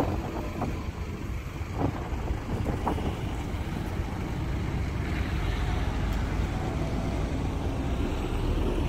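Steady low outdoor rumble, with a few faint clicks in the first few seconds.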